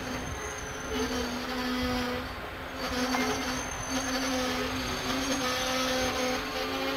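Amtrak stainless-steel passenger cars rolling past a station platform, with a low steady whine from the train that comes and goes about every second.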